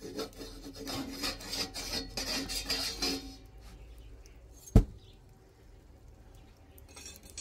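Flatbread rubbed and scraped across a hot iron sāj griddle as it is handled and lifted off: quick rasping strokes for about three seconds. A single sharp knock comes a little past the middle, and a faint click near the end.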